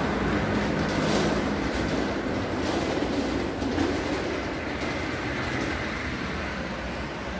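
Casters of a heavy wheeled machine rumbling and rattling as it is rolled across a concrete floor, growing fainter as it moves away.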